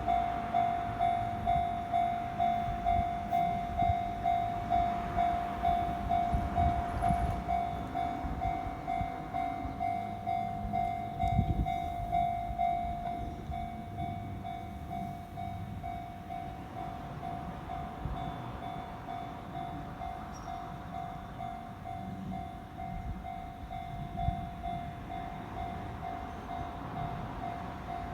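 Japanese railway level-crossing warning bell ringing in a steady electronic clang at about two rings a second, with the low rumble of a train passing over the crossing. The ringing turns softer about halfway through.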